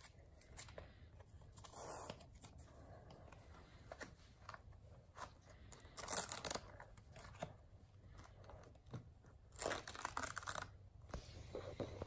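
Velcro strap being worked around a boot, pulled open and pressed shut, giving a few short faint ripping rasps about two, six and ten seconds in.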